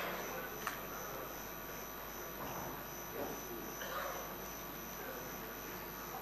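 Steady electrical hum with faint murmuring voices in the background, and one sharp click about two-thirds of a second in.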